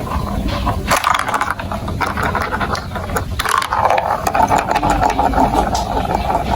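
Marbles rolling and clattering along a plastic building-block marble run: many quick clicks and rattles, with a steadier rolling rumble from about four seconds in.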